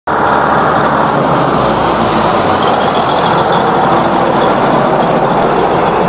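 Large four-wheel-drive farm tractor on dual wheels running loud and steady as it drives directly over the microphone.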